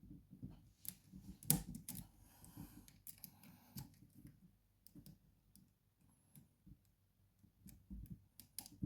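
Lock pick and tension tool working inside a Mul-T-Lock interactive padlock: faint, scattered small clicks and light scraping as the pins are probed and set, with one sharper click about a second and a half in.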